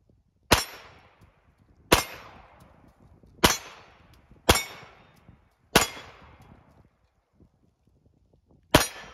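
Sig Sauer P226 XFive Classic 9 mm pistol firing six single shots at an unhurried pace, about one to one and a half seconds apart, each trailing off in a short echo. A pause of about three seconds comes before the last shot.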